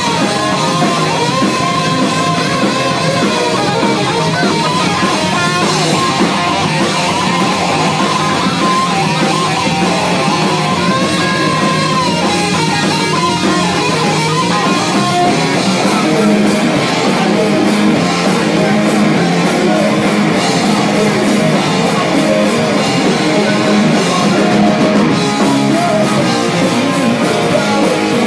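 Live rock band playing: electric guitars through a Marshall amplifier stack, bass guitar and drum kit. The band grows a little louder, with more cymbal, about halfway through.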